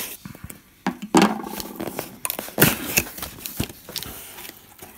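A scissors blade is drawn along the packing tape of a cardboard shipping box, slitting it open. Then the cardboard flaps are pulled open: a run of scrapes, clicks and cardboard knocks, with a longer scraping drag a second or two in.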